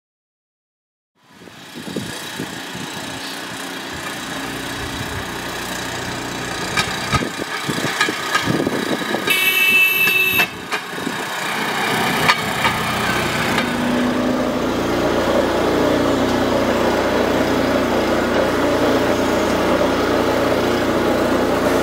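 Small single-cylinder petrol engine of a motorised rail trolley running as the trolley travels along the track, with scattered knocks in the middle and a brief high-pitched tone about nine seconds in. From about fourteen seconds the engine note is steadier and louder.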